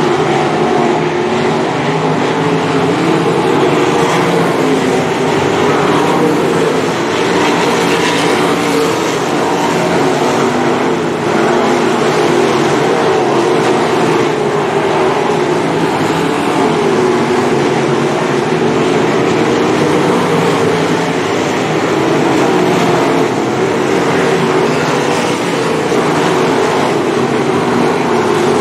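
A field of 305 sprint cars racing on a dirt oval: several V8 engines running hard at once, their sound overlapping into one steady, loud noise.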